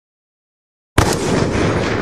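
Slowed-down DSR sniper rifle shot: a sudden loud boom about a second in, followed by a long low rumbling tail that slowly fades.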